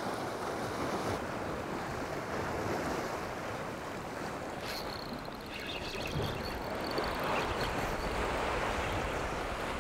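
Sea waves washing against jetty rocks, with wind buffeting the microphone.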